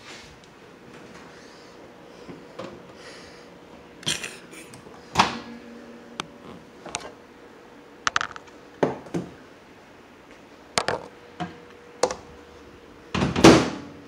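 Microwave oven running with a faint steady hum, heating a bowl of hot cereal, with scattered knocks and clatters of handling in the kitchen; a louder, longer clatter comes near the end.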